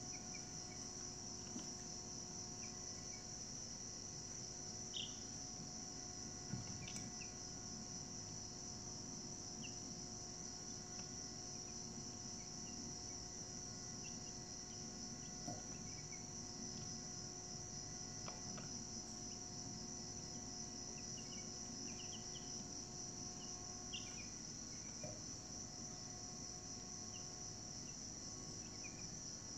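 Steady high-pitched insect chorus, like crickets trilling without a break, with short faint chirps and a few soft clicks now and then.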